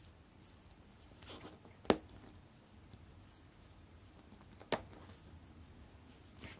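Two sharp small clicks about three seconds apart as the chronograph levers of a Citizen caliber 8110A movement are worked through a pusher rod, with faint handling rustle between.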